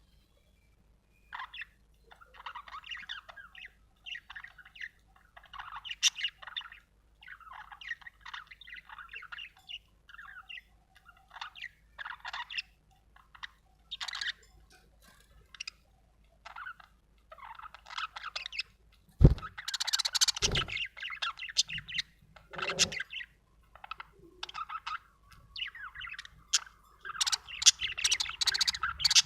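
Budgerigar chirping and chattering in short, quick bursts, louder and busier past the middle and again near the end, with a couple of low knocks about two-thirds of the way in.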